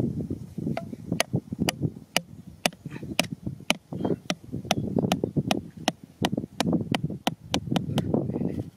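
A hammer striking the top of an upright blue PVC pipe, driving it down into the sand: a steady series of sharp knocks, about two to three a second, beginning about a second in.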